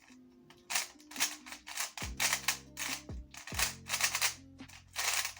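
GAN 13 MagLev 3x3 speedcube being turned fast, a rapid run of plastic clicking and clacking in quick bursts of turns, over background music.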